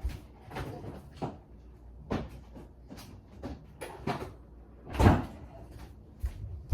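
Handling noise on a tabletop: a run of small knocks, clicks and rustles, with one louder knock about five seconds in, as cards and holders are moved and put away.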